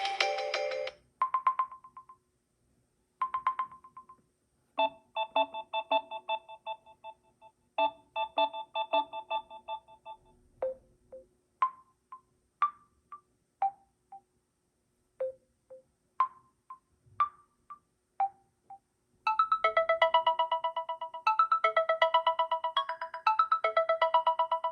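Stock Samsung Galaxy A04s ringtones playing in succession as short electronic melodies. It starts with a few single notes and repeated chords, moves to widely spaced bell-like notes that die away, and ends with a fast, busy repeating melody.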